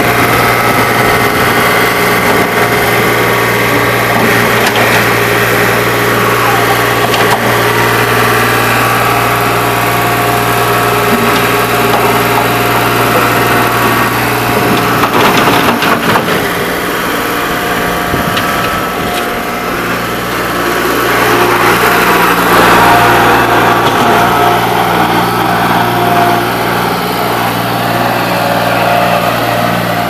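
New Holland L785 skid steer's diesel engine running steadily as the machine drives about, with a steady higher whine over it. About halfway through there is a short spell of rattling and scraping.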